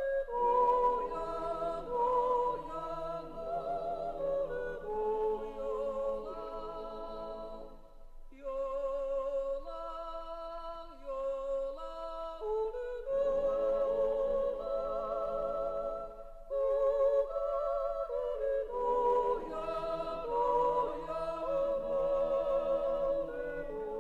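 Background music of several voices singing slow, wavering phrases together in harmony, with brief breaks between phrases.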